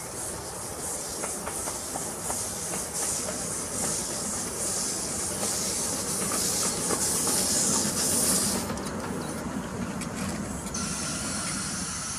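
Ride-on miniature live-steam locomotive passing slowly at close range: rhythmic chuffs of exhaust steam and a steady hiss over the rumble of the wheels on the rails. The hiss is loudest six to eight seconds in and drops off about nine seconds in as the engine goes by.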